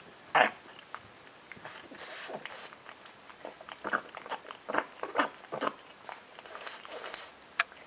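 A pug eating noisily: irregular wet smacks and chewing sounds, with the loudest smack about half a second in and a cluster of them in the middle stretch.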